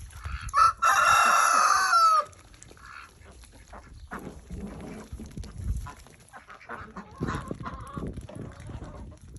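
A rooster crows once, about a second in, a loud call lasting about a second and a half that ends in a falling note; afterwards chickens cluck quietly.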